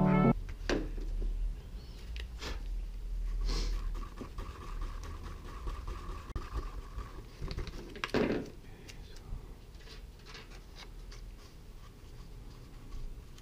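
Quiet workbench handling noises: scattered small clicks and scratches with a few soft rustles, the loudest about eight seconds in.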